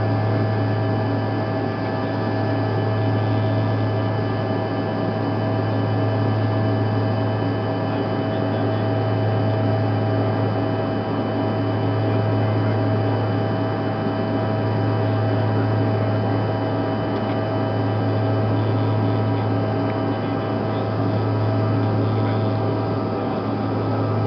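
Cabin noise of a Bombardier CRJ-200 regional jet in flight: a steady drone from its rear-mounted GE CF34 turbofan engines and the airflow. A strong low hum swells and fades every couple of seconds, with a few steady whining tones above it.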